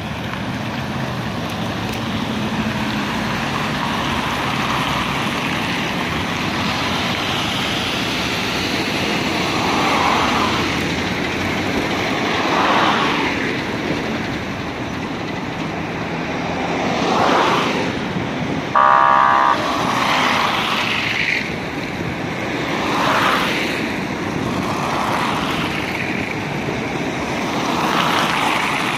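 Road traffic on a multi-lane city avenue: steady tyre and engine noise, with cars passing close by every few seconds. About two-thirds of the way through, a car horn gives one short toot.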